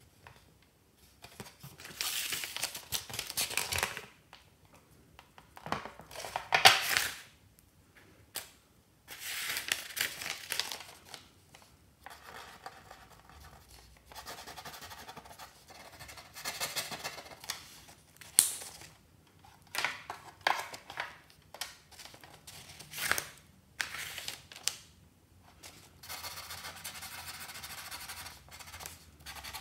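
Paper and plastic being handled on a toy drawing board, in several loud bursts of rustling and scratching, followed by a pen scratching over the paper in short strokes and then a steadier run of scribbling near the end.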